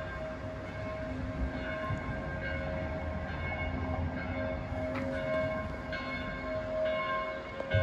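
Church bells pealing, several bells struck in turn with their tones ringing on, over a low background rumble.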